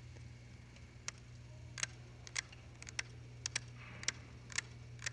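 Small metal chisel tapping and picking at rock around a fossil bone: sharp, irregular clicks, about a dozen in five seconds, over a steady low hum.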